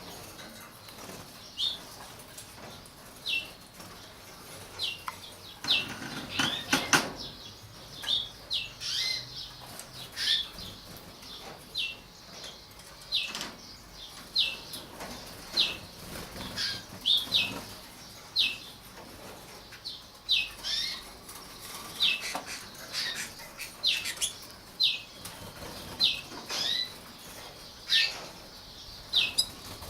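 North Frill canaries giving short, high call notes that fall in pitch, repeated about once a second. Around a quarter of the way in there is a bout of wing-flapping and rustling.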